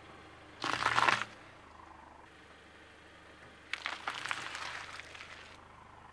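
A car tyre rolls onto a row of jujubes and crushes them with a short, loud crunch about half a second in. Around four seconds in the tyre squashes a bunch of bananas with a longer crackling squelch, lasting almost two seconds. A low, steady hum of the car's engine runs underneath.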